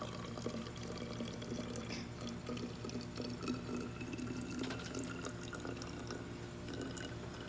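Water being poured into a bottle, a steady trickling and splashing as the bottle fills.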